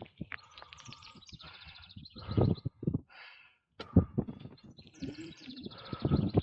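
A cyclist's heavy breathing on the microphone, loud puffs about every two seconds, from the effort of riding uphill. A bird trills twice in the background.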